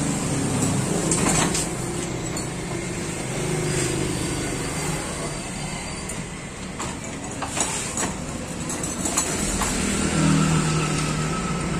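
A steady mechanical hum throughout, with a few sharp metal knocks, one about a second in and several more between about 7 and 9 seconds, as a heavy diesel engine on a steel skid is pried along with a metal bar.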